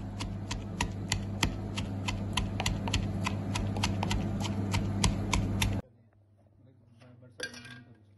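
Wooden pestle pounding garlic and ginger into a paste in a wooden mortar: a steady run of sharp knocks, about three to four a second, that stops abruptly about six seconds in.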